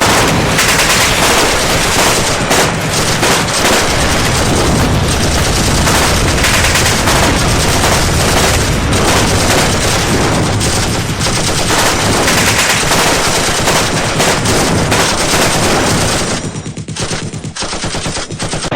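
Loud, dense, continuous gunfire: machine-gun bursts overlapping with rapid single shots. It thins out into separate shots about two seconds before the end.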